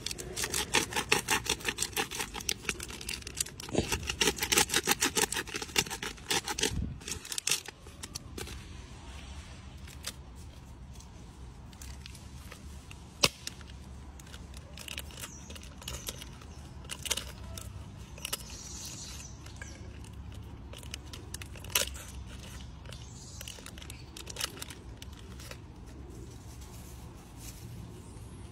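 Plastic snack wrapper crinkling and tearing as a macaque handles it and pulls it open: a dense run of crackles over the first seven seconds or so, then scattered crackles and clicks.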